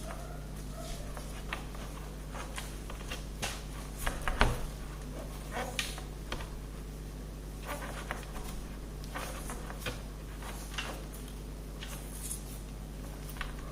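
Soft rustling and light clicks of hands wiring and winding sugar-flower sprays together, with a louder knock about four and a half seconds in, over a low steady hum.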